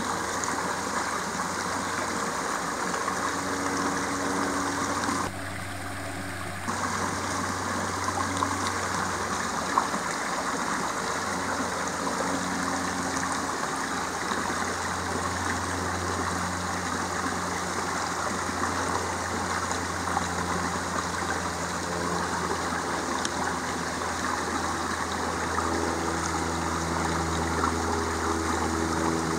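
Steady rush and trickle of a shallow rocky creek, with a low steady hum underneath. The sound briefly drops and changes about five seconds in.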